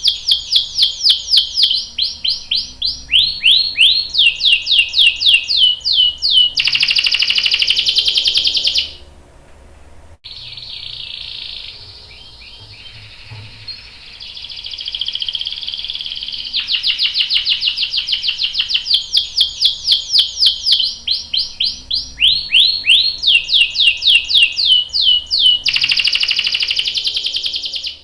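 Domestic canary singing long phrases made of fast runs of repeated chirps, each phrase ending in a dense buzzing roll. There is a brief break about nine seconds in, followed by a softer stretch before the loud runs return.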